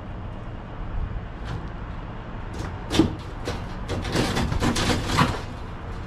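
Clicks and metal knocks of a gas pack unit's sheet-metal cabinet being opened up, thickening into a run of rattling clatter about four seconds in. A steady low rumble runs underneath.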